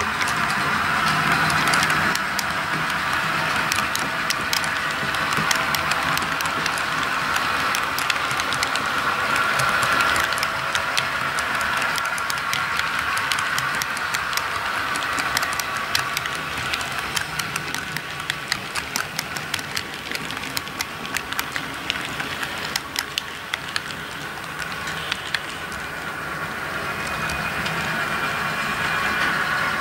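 Model railway freight cars rolling past on the track, their small metal wheels clicking many times over rail joints above a steady running hum.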